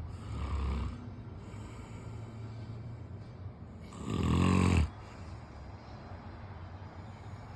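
Snoring: two snoring breaths about three and a half seconds apart, the second much louder and buzzing.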